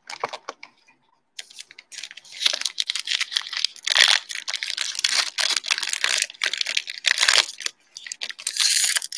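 Foil wrapper of a Panini Mosaic basketball card pack being torn open and crinkled by hand, a dense crackle of foil that starts about a second and a half in after a few light taps of the pack being taken out.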